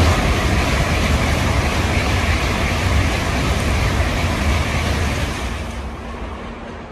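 N700-series Shinkansen train running through the station at speed without stopping: a loud steady rush that fades away over the last second or so as the train recedes.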